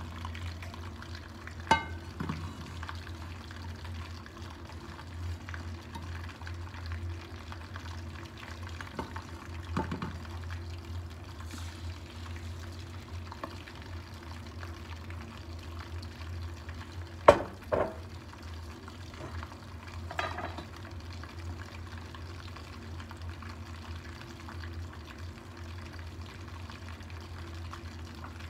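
Beaten eggs poured into hot oil in a frying pan and frying, over a steady low hum. Sharp clinks of kitchenware come about two seconds in and twice close together just past the middle.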